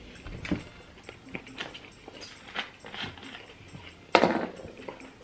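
Eating and table-handling noises: scattered small clicks and mouth smacks, and one loud knock about four seconds in.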